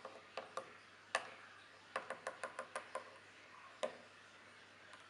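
Small plastic toy figurines being handled and set down on a wooden floor: a scatter of sharp clicks and taps, the loudest about a second in, then a quick run of about seven clicks between two and three seconds in.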